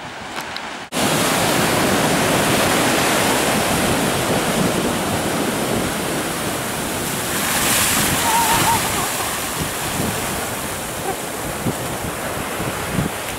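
Ocean surf washing onto a beach, with wind buffeting the microphone. The sound starts abruptly about a second in, and one wave swells louder about eight seconds in.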